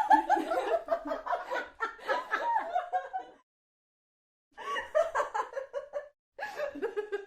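Human laughter: rapid, pulsing 'ha-ha' laughing for about three seconds, a silent gap of about a second, then two more short bouts of laughter.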